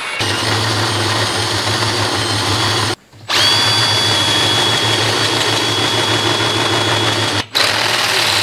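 Power drill boring into a semi truck's steel frame rail, the bit smoking as it cuts. It runs steadily with a high whine, stops briefly about three seconds in and again near the end, then starts again each time.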